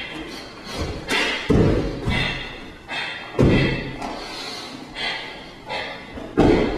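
Bare feet stamping and landing on a wooden floor during a taekwondo pattern: three heavy thumps, about a second and a half in, past the middle, and near the end. Between them come shorter, sharper swishes from the moving uniform.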